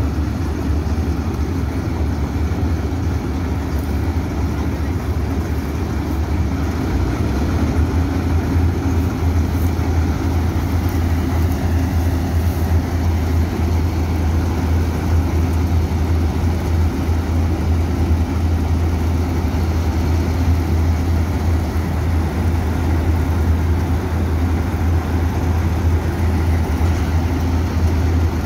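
Dasmesh 912 combine harvester running, its engine and threshing machinery giving a steady low drone. It grows a little louder after about seven seconds.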